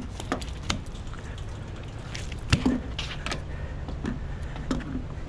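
Scattered light clicks and taps of metal fishing pliers and a landing net being handled on a wooden dock, over a steady low rumble.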